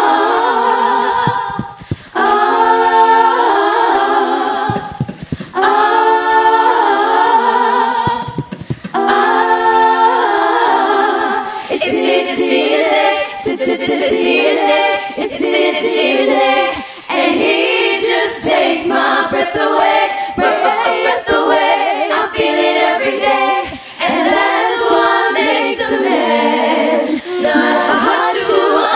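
Female pop vocal group singing a cappella in layered harmony, with no instruments. The phrases break off briefly a few times in the first ten seconds, then the singing runs on more densely.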